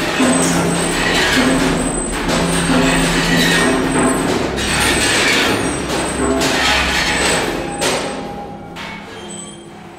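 Milking machine running: surging waves of air hiss from its vacuum and pulsation system over a steady low drone, fading away over the last two seconds.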